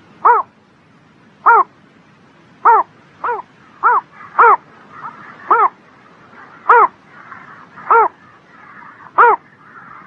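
A small bittern calling: a short pitched call repeated about ten times, roughly once a second, coming faster for a few calls in the middle. Fainter calls chatter in the background in the second half.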